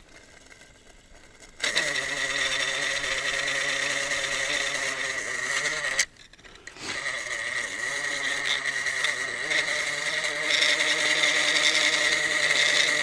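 Small plastic reel on a homemade ice-fishing rod spinning freely as the sinking weight pulls line off it down the hole: a steady whirring hum. It starts about a second and a half in, stops with a click around six seconds, and starts again about a second later.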